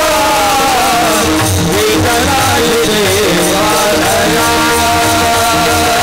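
Several male voices singing a Warkari kirtan melody (chal) together, with brass hand cymbals (taal) struck in a steady rhythm; the voices slide between notes, then hold a long note in the second half.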